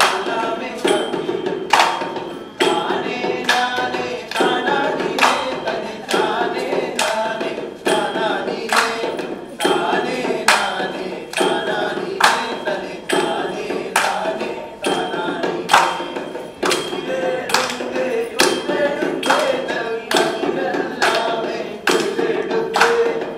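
Song with singing over a steady percussion beat.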